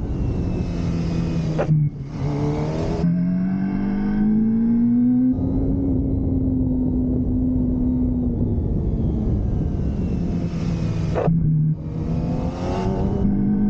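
Motorcycle engine heard from on board while riding on a track. The engine note climbs and holds, with two gear changes, about two seconds in and near the end, where the pitch drops sharply and then rises again.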